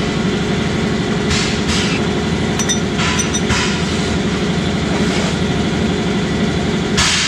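Steady low drone of an engine running in the workshop. A few short rasping bursts of a socket wrench working the gearbox filler plug sound over it.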